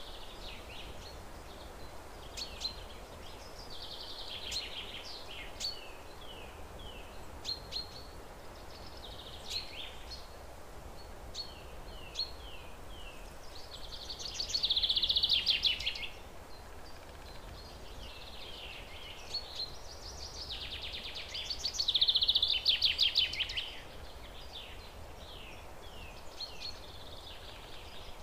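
Birdsong: repeated high chirps and short falling notes throughout, with two loud rapid trills about halfway through and again a little later, over a faint steady low hum.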